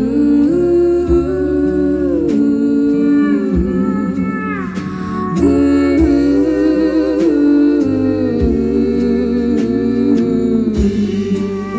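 Live country band playing: a woman sings long, drawn-out notes with vibrato over acoustic guitar, electric guitar, keyboard and a steady drum beat.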